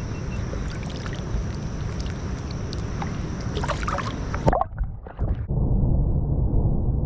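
River water sloshing and splashing at the bank, with scattered small clicks and a short burst of splashing about four seconds in. About a second later the sound cuts abruptly to a muffled low rumble.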